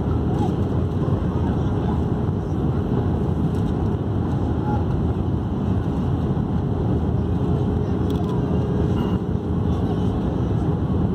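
Cabin noise of an Airbus A319 in flight: a steady low rumble of the engines and rushing air, with a faint steady hum.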